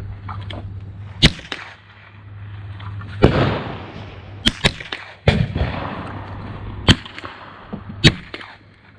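Gunfire at an outdoor shooting range: about seven single rifle shots at uneven intervals, two of them followed by a longer rolling echo.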